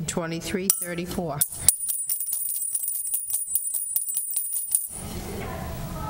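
Metal dog tags rattling and clinking against each other and the bowl as they are shaken in a clear bowl, a rapid jingle with a high ringing that starts about a second and a half in and stops suddenly near five seconds.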